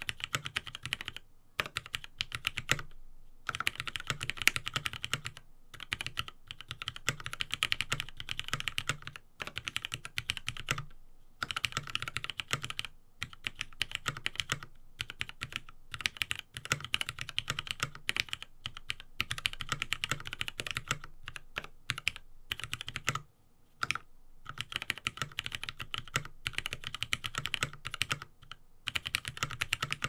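Typing on a Helix Lab Aaru TKL mechanical keyboard with lubed Cherry MX Black linear switches and PBT keycaps: fast runs of keystrokes with brief pauses between them.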